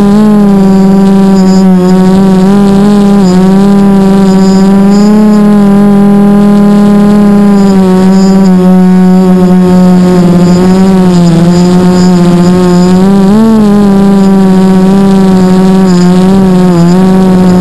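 Small quadcopter's four Sunny Sky 2216 brushless motors and propellers running, heard loud from on board as a steady whine. The pitch wavers and briefly dips and swings up a few times as the throttle changes.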